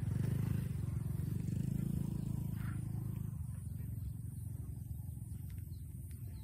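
An engine running nearby with a low, even hum that fades away over the first three seconds, leaving faint outdoor background with a few soft clicks.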